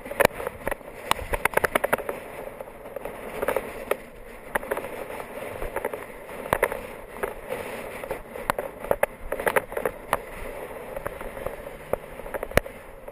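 Rush of wind and road noise picked up by a camera mounted on a road bicycle's handlebars as it rolls along, with many irregular clicks and rattles from road vibration.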